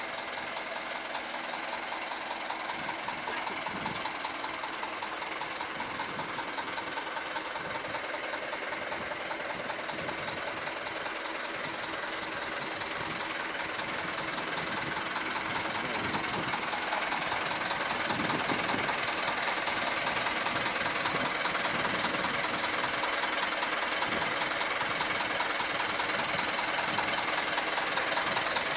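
A truck engine idling, heard as a steady hissing running sound that grows somewhat louder about halfway through.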